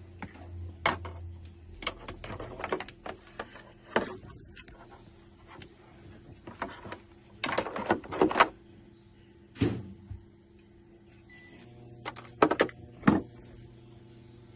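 Handling noise: a string of sharp clicks, knocks and rustles from objects being picked up and set down, some in quick clusters, over a faint steady hum.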